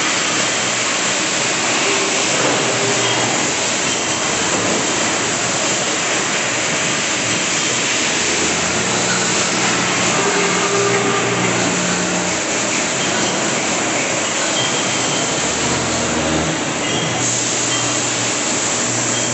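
Steady mechanical din of a row of CNC machines with automatic gantry loaders running, with low motor hums that come and go.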